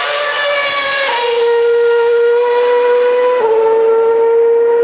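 A 2012 Williams Formula 1 car's V8 engine screaming at high revs. Its pitch falls as it passes close by, then it pulls away on a steady high note with two quick upshifts, the first about a second in and the second about three and a half seconds in.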